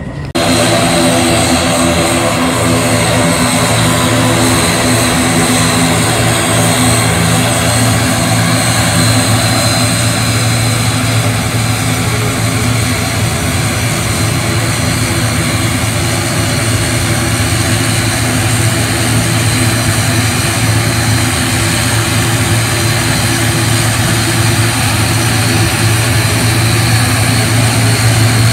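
Airbus C295's twin turboprop engines running as the aircraft taxis past: a loud, steady propeller drone with a thin high whine above it.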